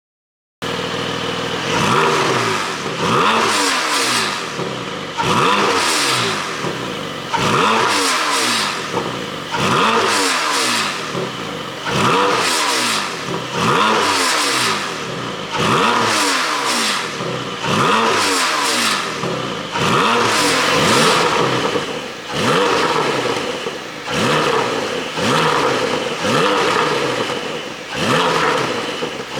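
Porsche 718 Boxster GTS 4.0-litre flat-six revved over and over, about one blip every two seconds, the revs falling away each time with popping and crackling from the exhaust. The pops on the overrun come from an ECU tune made for exhaust pops.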